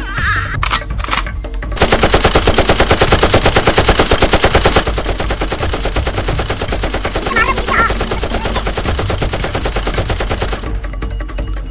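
Rapid automatic gunfire in a steady, even stream, about ten shots a second, starting about two seconds in. It is loudest for the first three seconds, runs on somewhat softer, then cuts off suddenly near the end.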